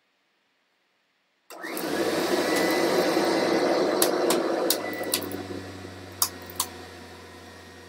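Kirby Ultimate G Diamond Edition upright vacuum cleaner switched on about a second and a half in, its motor running with a steady low hum. A few sharp ticks come through in the middle, and the noise eases off toward the end.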